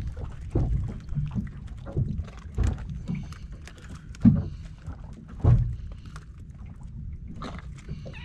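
Irregular knocks and thumps around a small open fishing boat as water slaps the hull and hooked baitfish are handled off a sabiki rig. The two loudest knocks come about four and five and a half seconds in.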